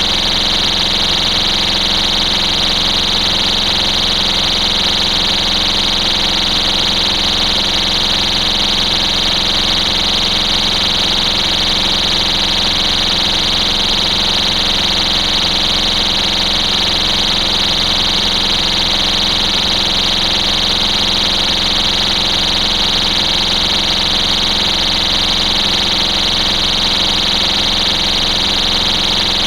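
STI Stopper cover's built-in warning horn sounding a continuous, steady high-pitched tone, loud and unbroken.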